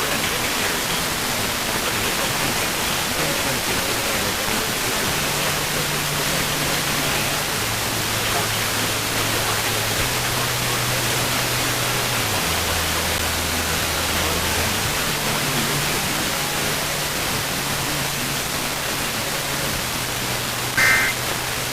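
Steady radio static hiss with a faint low hum that shifts pitch every few seconds. Near the end comes a short two-tone digital data burst, typical of the Emergency Alert System end-of-message code.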